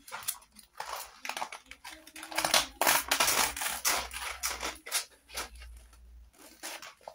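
Crinkling and rustling of paper or plastic sheets being handled, a dense run of crackles that is loudest in the middle and thins out toward the end.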